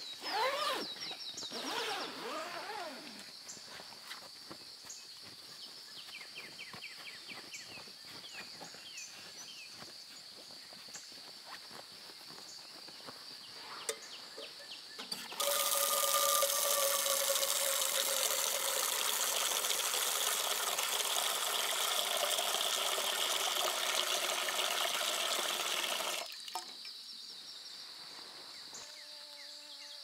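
Tap water pouring into a stainless steel pot over a stainless sink for about ten seconds, starting and stopping abruptly, with a ringing tone that slides down in pitch at first. Around it, brief handling noises near the start and a faint steady high insect drone.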